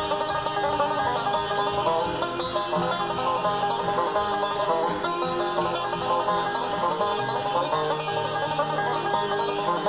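Background music: fast plucked banjo in a bluegrass style.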